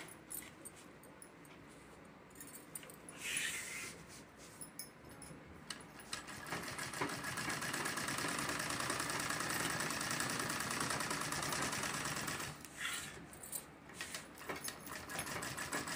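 Sewing machine stitching a lining piece onto quilted fabric. After a brief rustle of cloth being set in place, it starts about six seconds in and runs steadily, stops briefly about twelve seconds in, then runs again near the end.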